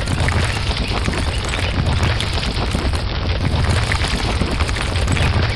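Animated concrete mixer truck sound effect: a steady heavy rumble with a gritty, rushing crackle over it, like wet concrete churning and pouring.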